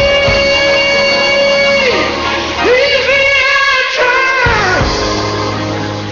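Gospel song with instrumental backing: a singer holds one long high note, then sings a few short phrases that fall in pitch, and the music fades out near the end.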